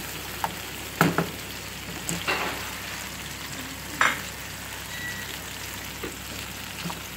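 Diced tomato and onion sizzling steadily in oil in a nonstick frying pan, sautéing until soft. A plastic slotted spatula scrapes and knocks against the pan now and then while stirring, loudest about a second in and again about four seconds in.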